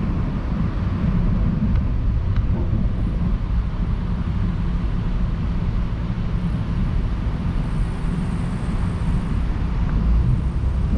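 Car driving at speed on a highway: a steady low rumble of road, tyre and engine noise.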